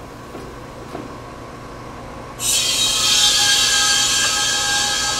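Air-conditioner condensing unit running with a steady low hum; about two and a half seconds in a cylinder valve is opened and a loud hiss with a whistling tone starts suddenly and holds. It is liquid R-410A refrigerant rushing from the unit's liquid line into an evacuated recovery cylinder, driven by the running system compressor.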